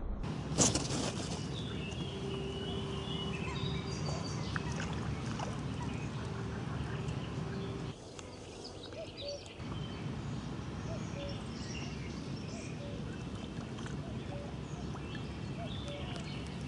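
Riverside outdoor ambience: steady low background noise with faint short chirps, and a sharp click about half a second in.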